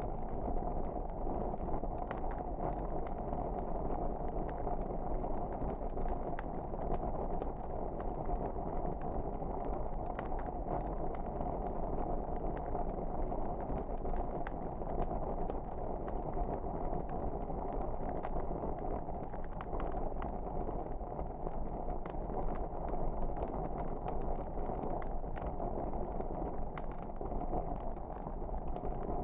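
Wood fire crackling in a fireplace: a steady low rush of flames with frequent small sharp pops and snaps scattered throughout.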